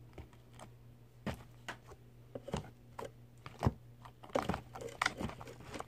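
Slime being squeezed and poked by hand for ASMR, giving irregular wet clicks that are sparse at first and come faster about four seconds in.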